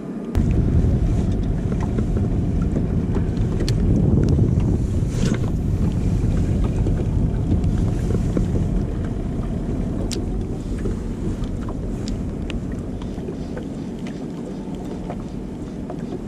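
Wind buffeting the camera microphone: a steady, loud low rumble with scattered small clicks and taps. It starts suddenly just after the start.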